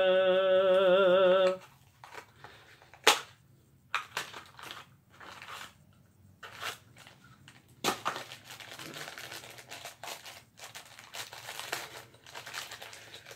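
A man's voice holds a long, wavering sung "Ninjaaa" for the first second and a half. Then a small blind-pack wrapper is torn and unwrapped: scattered crinkling with a few sharp snaps, the rustling getting denser and steadier over the last five seconds.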